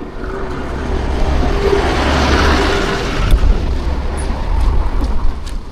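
A road vehicle passing, its tyre and engine noise swelling to a peak about halfway through and then fading, over a low rumble.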